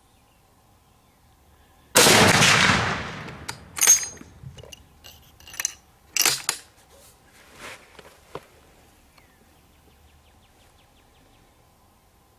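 A single shot from an Armalite AR-50 .50 caliber bolt-action rifle with a muzzle brake: one sharp blast about two seconds in that dies away over a second or so. Several metallic clicks and clacks follow over the next few seconds as the bolt is worked.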